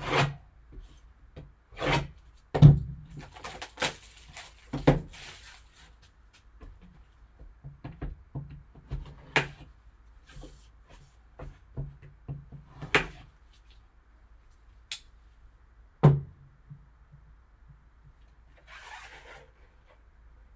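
Hands opening a sealed cardboard card box and handling its packaging: irregular knocks, taps and rubbing, with a few louder thunks and a short rustle near the end.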